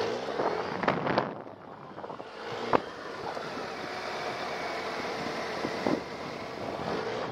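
Suzuki Hayabusa's inline-four engine rising in revs and easing off in tight, low-speed manoeuvring, with wind rustling on the microphone. A few sharp knocks come about a second in and near three seconds.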